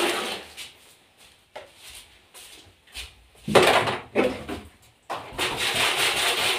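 Objects handled and set down on a tiled kitchen counter, with a few sharp clatters about three and a half seconds in. Near the end a steady rush of running water starts.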